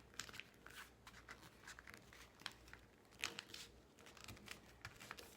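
Paper rustling and crinkling in small, irregular bursts as a sheet of paper is handled and creased while folding a paper airplane's wings, faint throughout.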